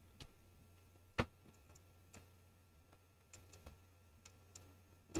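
Faint computer mouse clicks over low room hum: one clearer click about a second in, then a few fainter ticks as the page is scrolled.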